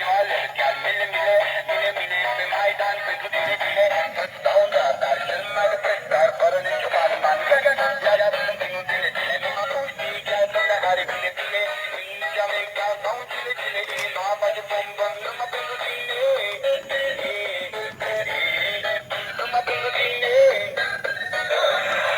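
Music with a synthesized, electronic-sounding singing voice, thin and tinny with little bass or treble, running on at a steady level.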